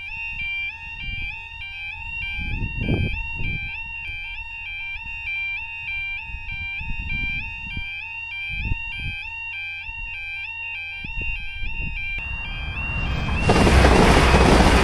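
Level crossing's electronic two-tone yodel alarm wailing as the barriers come down, stopping about twelve seconds in. A passenger train then rushes over the crossing near the end, its noise swelling quickly to the loudest sound.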